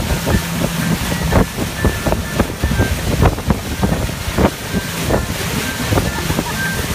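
Motorboat under way at speed: a steady engine hum under the rush of its wake water, with wind buffeting the microphone and many short sharp thumps.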